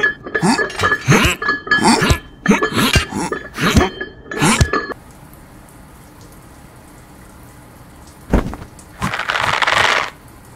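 Cartoon gym weights clanking in a quick, uneven run of metallic hits for about five seconds, then stopping. Near the end comes a single thump, followed by about a second of rustling.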